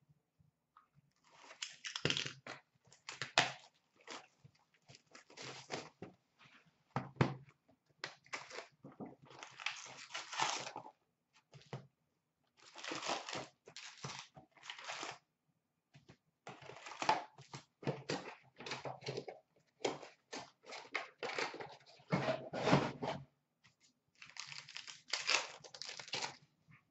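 Wrapping and cardboard of a sealed hockey trading-card box being torn open and crinkled, in irregular bursts, then the card packs inside being handled.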